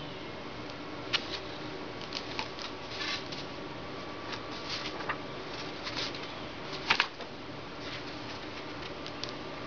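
Paper cards and packaging being handled: intermittent rustling and crinkling with scattered light clicks, the loudest a sharp double tap about seven seconds in, over a steady low background hum.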